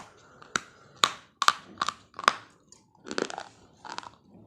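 Pieces of baked clay pot and slate pencil being bitten and chewed, with about five sharp, brittle crunches in the first two and a half seconds, then two duller, grinding chews.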